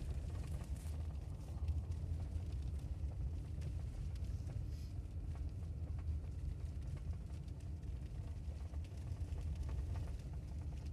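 Car driving on a snow-covered road, heard from inside the cabin: a steady low rumble of engine and tyres, with scattered faint ticks.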